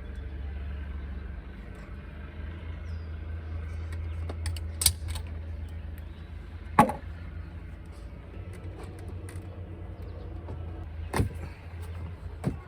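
A low steady rumble with four sharp knocks or clicks spread through it: one about five seconds in, the loudest a couple of seconds later, and two more near the end.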